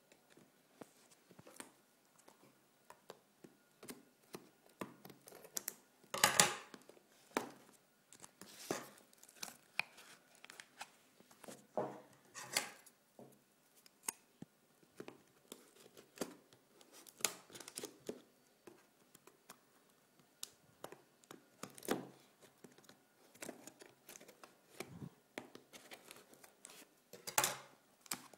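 Product packaging being pulled and torn open by hand: irregular rustling, crinkling and tearing with scattered clicks and knocks, the loudest about six seconds in.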